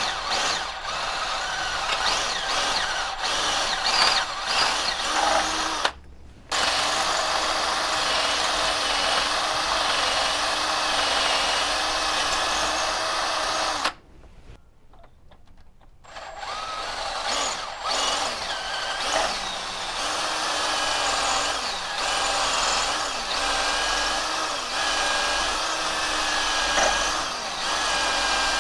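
18-volt cordless drill running, its bit boring out a broken exhaust stud in the exhaust manifold flange of a Chevy 350 V8. It runs steadily with a short stop about six seconds in and a pause of about two seconds near the middle, then starts again.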